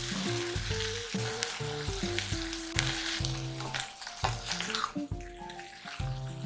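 Sizzling and hissing as a little water is poured into a hot cast iron pot of kabocha squash. Near the end a wooden spatula stirs the squash with butter and the sizzle dies down. A few sharp clicks of the pot and spatula.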